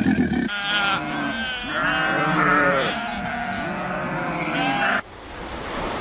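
Sheep bleating, several wavering calls one after another, cut off abruptly about five seconds in. A low roar from the previous animal clip runs into the first half second.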